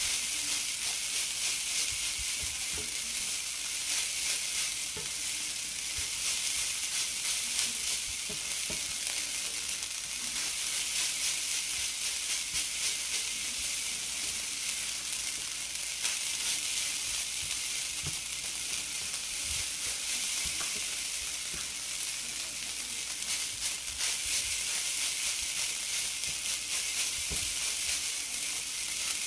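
Java fried rice sizzling steadily in a nonstick frying pan while a silicone spatula stirs and turns it, with soft scraping and scattered light knocks against the pan.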